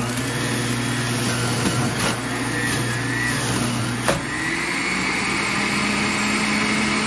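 Hamilton Beach centrifugal juice extractor running steadily, shredding whole oranges fed down its chute. About four seconds in there is a short knock, and the motor's note shifts higher.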